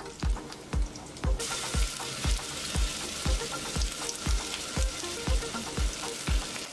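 Onions frying in hot oil in a pressure cooker, a steady sizzle that turns louder and brighter about a second and a half in as ginger-garlic paste goes into the oil. Background music with a steady beat of low thumps, about two a second, runs underneath.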